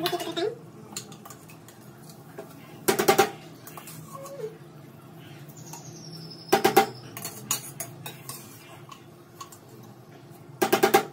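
Stainless-steel cookware clattering: three short bursts of quick metallic knocks, each with a brief ring, a few seconds apart.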